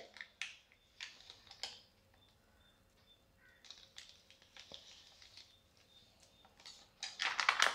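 Faint clicks and light scraping as a heated kitchen knife blade is pressed and drawn along the top edge of a plastic pouch on a stone counter, heat-sealing it shut. A soft crinkle of the plastic rises near the end.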